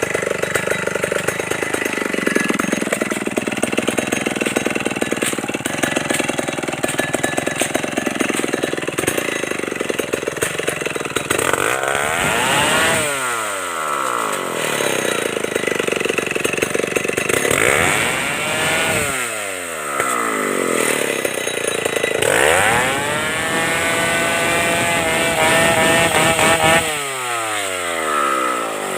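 Stihl 070 two-stroke chainsaw running hard for about the first ten seconds, its pitch sagging and then recovering. After that it is revved and let fall back four times, each rev rising and then sliding down.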